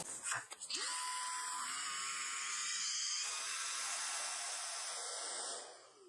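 Corvan K9 Pro cordless stick vacuum running with a steady high-pitched whine as it sucks up a pile of yarn, which begins to snag on its brush roll. A few light clicks come just before it starts, and it fades out near the end.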